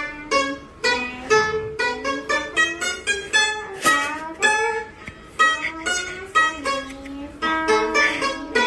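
A round-bodied Chinese plucked lute playing a melody, one plucked note after another, two or three a second, with some notes bending in pitch.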